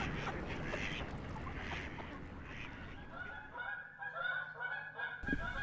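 Birds honking: a quick series of short, clean-pitched calls begins about three seconds in and stops abruptly, over a faint outdoor hiss.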